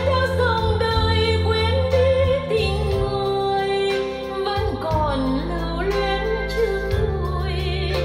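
A woman singing a ballad with band backing and a steady bass line, her voice wavering with vibrato, played back through JBL L100 Century loudspeakers driven by a Marantz 4400 receiver.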